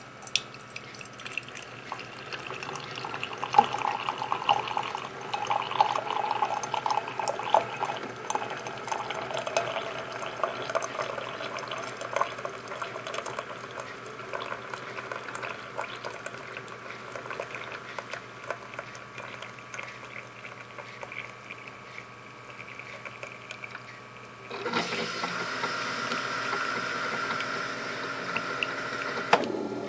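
Hot coffee streaming from a single-serve coffee brewer into a ceramic mug, a continuous trickle and splash as the mug fills. Near the end it changes suddenly to a louder, steady hiss.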